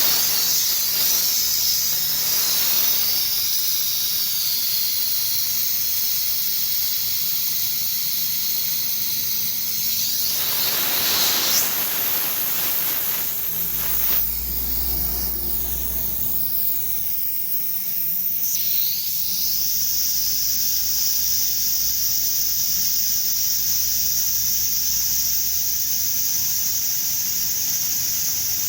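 Steady high hiss of the leak-test pressure being vented out of an air-conditioner's refrigerant circuit through the gauge hose, ahead of vacuuming. The hiss shifts in tone between about ten and nineteen seconds in.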